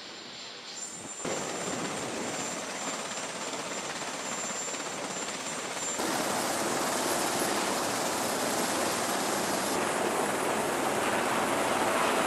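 Helicopter engines and rotors running on a carrier flight deck, a steady rushing noise. It changes abruptly and grows louder about a second in and again about six seconds in.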